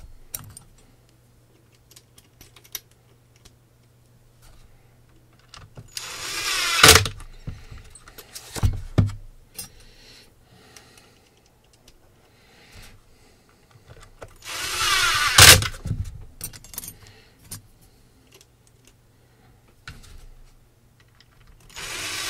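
Cordless drill/driver driving screws back into a plastic battery pack casing, in three short bursts of a second or two with a rising whine, each ending in a sharp click. Between the bursts, a few light knocks of the drill and casing being handled.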